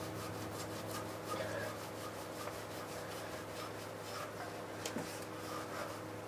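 Hand-cleaning rubs on a Rieju MRX 50 moped's grimy rear wheel, quick even back-and-forth strokes, working off dirt thrown from the chain. A steady low hum runs underneath.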